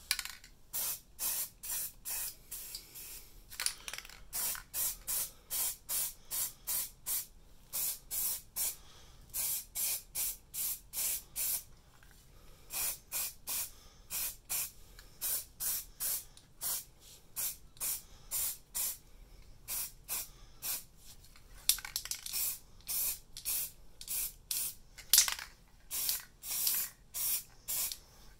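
Aerosol can of grey primer spraying in many short hissing bursts, about two a second with brief gaps between, as a coat of primer goes onto a 3D-printed prop pistol.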